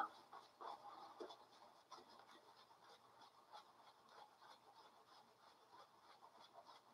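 Faint, uneven brushing of a synthetic shaving brush as it works lather over a bearded face.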